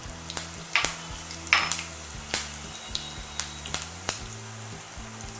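Mustard and cumin seeds spluttering in hot ghee: about a dozen sharp, irregular pops over a faint steady sizzle, the first stage of a tadka.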